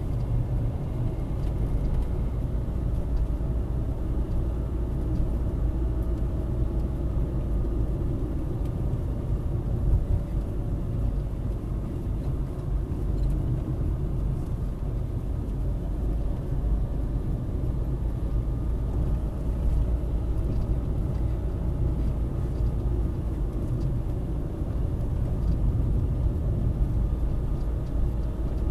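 Car driving along a road, heard from inside the cabin through a dash cam: a steady low rumble of tyres and engine, with a faint engine hum that wavers slightly in pitch.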